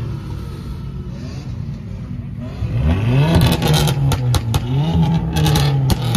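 Car engines idling, then a sports car's engine revved twice, rising and holding briefly each time, with sharp crackles.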